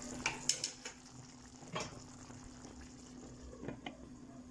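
Kitchen clatter at a stovetop pan of simmering potatoes in tomato sauce: a few light knocks of utensils, then a glass pan lid clinking down onto the pan near the end, over a steady low hum.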